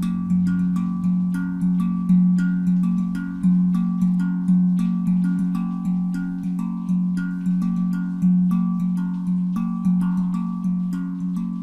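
Handpan tuned to F Phrygian at 432 Hz, played by hand in a steady rhythm: a low centre note rings out again and again beneath quicker, higher notes, each stroke a sharp attack that rings on.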